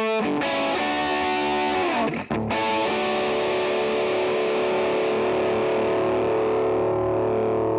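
Electric guitar played through a Line 6 Spider V modelling amplifier with an overdriven tone. A few quick distorted chords are followed, about a third of the way in, by one chord held and left ringing.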